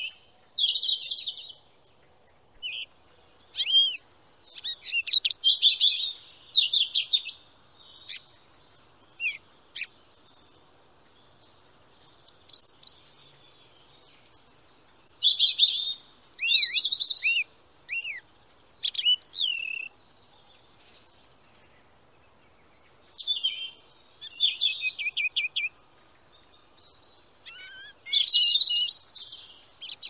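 Small songbirds calling in short bouts: high chirps, quick rattling trills and down-slurred notes, separated by pauses of one to three seconds.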